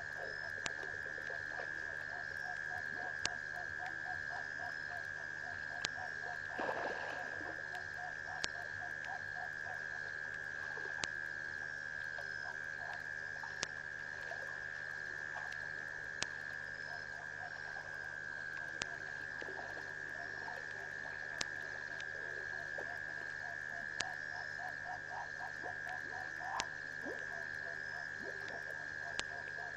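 Night frog chorus: rows of rapid pulsing croaks over a steady high-pitched hum, with a faint sharp tick about every two and a half seconds and one brief louder noise about seven seconds in.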